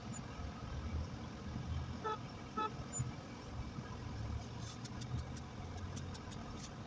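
Steady engine and road rumble heard from inside a moving car, with two short car-horn toots about two seconds in, half a second apart. Faint light clicking sounds over the second half.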